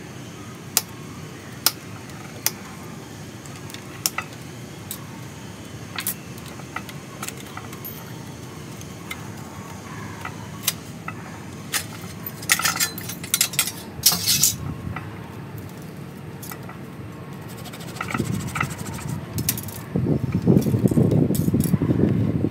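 Pruning shears snipping twigs, sharp clicks roughly once a second, then a quick run of clicks and rattling midway. Near the end, low rustling and scraping as the bonsai's trunk and pot are handled.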